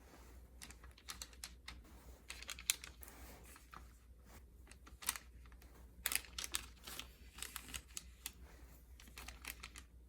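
Irregular runs of light clicks and crackles from hands handling food on a work surface, such as pitting and opening dates or pressing pistachios into them, over a faint steady low hum.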